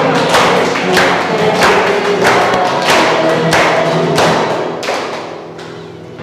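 Congregation singing a hymn with hand clapping on the beat, about one clap every two-thirds of a second. The singing and clapping die away about five seconds in.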